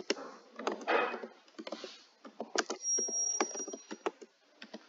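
Computer keyboard being typed on: irregular runs of short keystroke clicks, with a brief thin high tone about halfway through.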